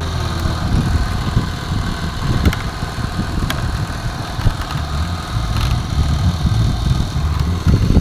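An engine running with a steady low rumble, with a few faint clicks over it.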